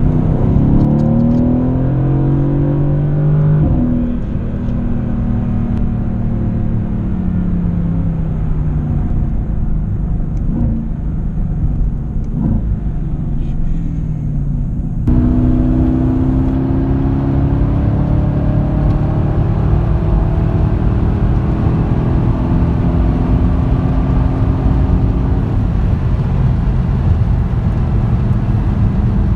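Cabin sound of a Mercedes-AMG GT S 4.0-litre twin-turbo V8 pulling up through the revs with a rising engine note, a gear change about four seconds in, then the pitch falling as it eases off. About halfway through the sound cuts abruptly to a steady engine drone and tyre noise at cruising speed, its pitch sinking slowly.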